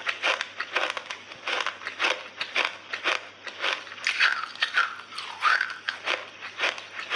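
Crunching and chewing of clay chunks in the mouth, a regular run of crisp crunches about two to three a second, with a few brief squeaky sounds near the middle.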